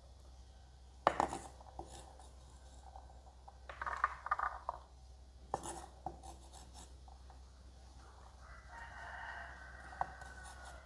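Kitchen knife knocking on a wooden chopping board while dicing carrots: a few sharp, scattered knocks with pauses between. A faint drawn-out tone sounds in the background about eight and a half seconds in.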